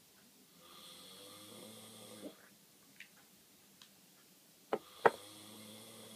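A person snoring in sleep: one long, pitched snore, then two sharp, loud snorts about four and three-quarter seconds in, running into a second long snore.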